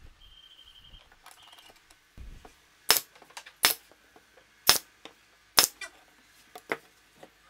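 Pneumatic nail gun firing four nails into a plywood box corner, about a second apart, each shot a sharp crack.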